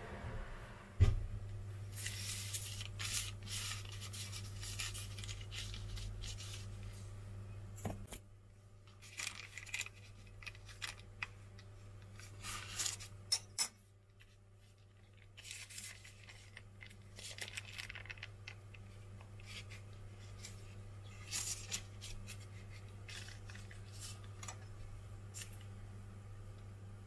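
Baking parchment paper rustling and crinkling in short scattered bursts as hands handle and straighten a sheet of puff pastry on it. A sharp click about a second in, and a low steady hum for the first several seconds.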